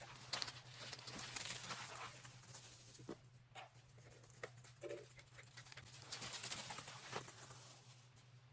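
Dog's paws pattering and scuffling on the ground in irregular spells, over a faint steady low hum.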